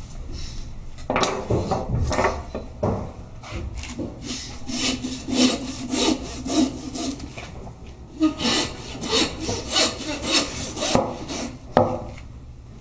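Hand-held bow meat saw cutting through a lamb carcass between the fourth and fifth ribs, its blade rasping in quick, repeated back-and-forth strokes through bone. The sawing starts about a second in.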